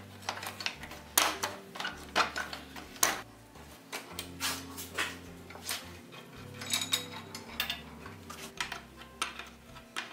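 An adjustable wrench clinks against rusty nuts and old iron brake fittings as they are undone from a weathered wooden wagon brake beam: a string of irregular sharp metal clicks and clanks.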